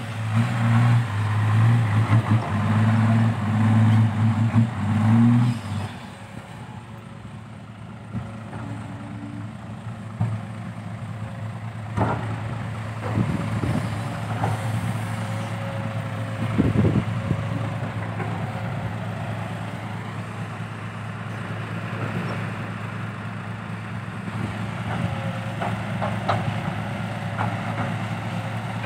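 Isuzu Deca 195 dump truck's diesel engine revving hard in repeated bursts through its new triple side-exit exhaust tips for about six seconds, then dropping to a steady, quieter running. A few knocks sound midway.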